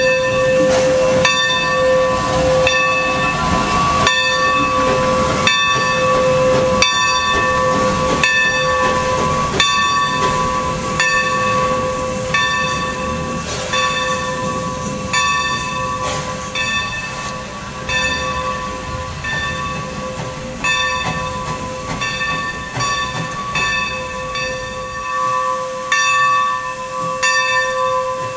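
The Skunk Train's No. 45, a 2-8-2 Mikado steam locomotive, moving slowly with its bell ringing in a steady rhythm, a little under once a second. Under it run a continuous steam hiss and a steady whine.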